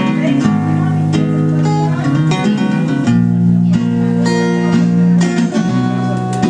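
Acoustic guitar strumming and holding chords in an instrumental passage between sung lines of a song.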